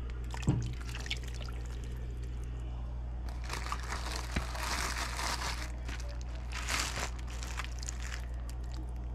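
Clear plastic oven bag crinkling and turkey juices sloshing and squelching as hands dig into a roasted turkey carcass inside the bag. The rustling is loudest a few seconds in and again briefly near the end, with a single knock about half a second in, over a steady low hum.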